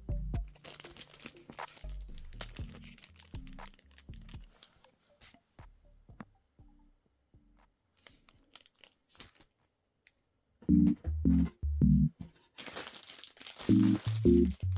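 Background music with a bouncy bass line over scattered clicks and crinkling noises. The music thins out for a few seconds in the middle, then comes back louder in short pulses near the end.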